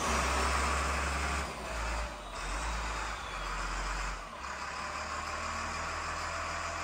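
Caterpillar 950F wheel loader's Cat 3116 diesel engine running, its speed changing a few times in the first four seconds as the throttle is worked back and forth, then running steadily and a little quieter. It is the engine's first running after a rebuild with a new cam, still freeing up; the owners suspected old diesel fuel and gummy parts made it slow to rev.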